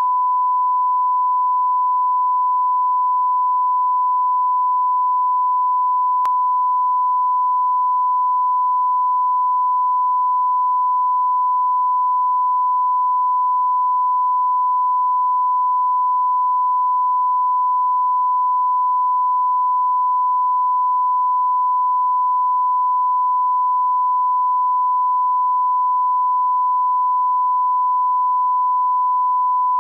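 Broadcast line-up test tone that accompanies colour bars: one continuous steady beep at a single mid pitch, with a faint click about six seconds in.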